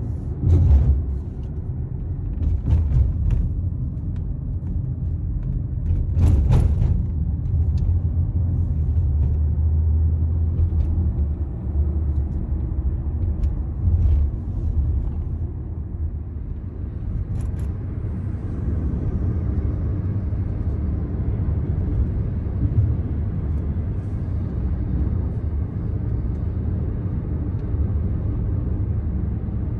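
Car cabin noise from a moving taxi: a steady low rumble of engine and road noise, with a few short clicks and knocks in the first half.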